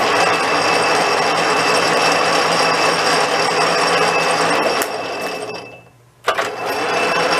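Sheldon Model NA metal lathe running free with no cut: a steady mechanical whir with a high whine over it. About five seconds in it winds down almost to a stop, then a sharp click and it comes straight back up to speed.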